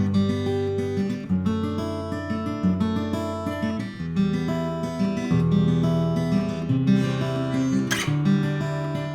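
Sigma GME+ acoustic-electric guitar played acoustically: chords picked note by note over a moving bass line, with one quick full strum about eight seconds in.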